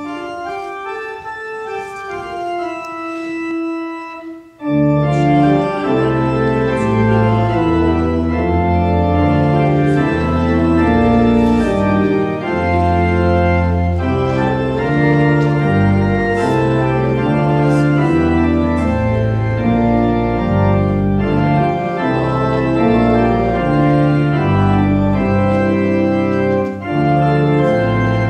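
Church organ playing an offertory piece: a softer passage in the upper register for the first few seconds, then about five seconds in it swells to full chords with deep pedal bass notes.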